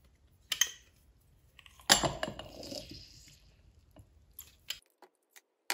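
Hand-held metal lemon squeezer crushing a lemon half over a ceramic mug: a click, then a wet squelch about two seconds in as the juice is pressed out into the mug, fading over a second or so, then a few light clicks of metal on the mug.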